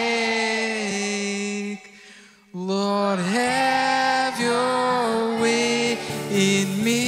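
Man singing long held notes while strumming an acoustic guitar; the voice breaks off briefly about two seconds in, then comes back.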